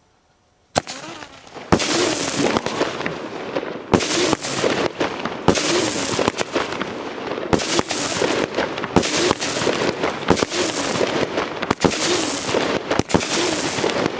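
Aerial fireworks going off: a sharp bang about a second in, then dense continuous crackling with repeated sharp bangs from bursts of gold crackling stars.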